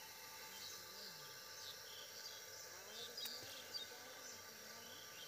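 Faint rural outdoor ambience: scattered short, high bird chirps over a low steady hiss, with faint distant voices and a single sharp click about three seconds in.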